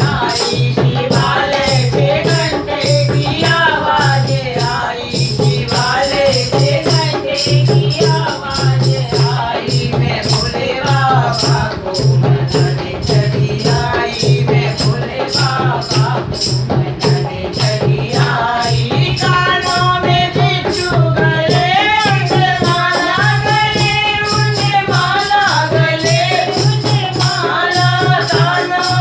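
Hindi devotional bhajan to Shiva, sung by a woman to a steady low drum beat and a shaker or rattle keeping time. The voice is stronger and higher in its second half.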